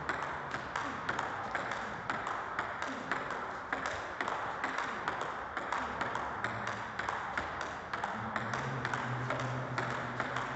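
Table tennis rally: a plastic ball struck back and forth by rackets faced with DHS Hurricane 8 rubbers and bouncing on the table, a quick, fairly even run of sharp ticks.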